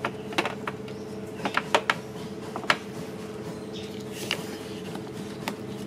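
Knife blade striking a wooden chopping board a handful of times at an uneven pace while garlic is cut, over a steady hum.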